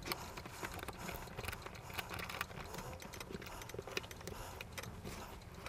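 Faint scattered clicks and light scraping of metal parts being handled on a Yugoslav M48 Mauser rifle during reassembly.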